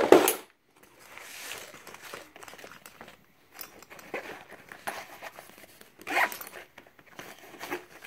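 Handling noise from a fabric lunch bag: its fabric and webbing strap rustle, with small clicks of hardware. There is a loud knock at the very start as a gold pan hung on the bag is moved, and a louder handling sound about six seconds in.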